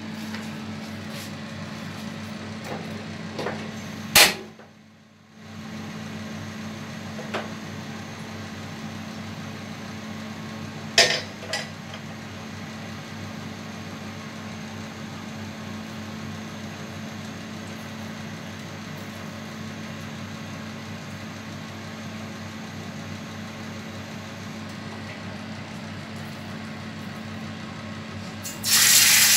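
A steady low hum with two sharp clicks, then near the end a loud sizzle starts as marinated fish is slid into hot oil in a frying pan.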